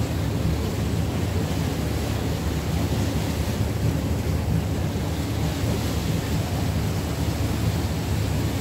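Steady low rumble of a river paddle steamer's machinery, heard from the deck, with wind noise on the microphone. The ship's horn is not sounding.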